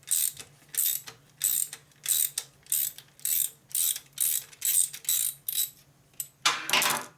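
Hand ratchet wrench clicking in a steady series of short strokes, about one and a half a second, as a bolt is worked, with a longer, faster run of clicks near the end.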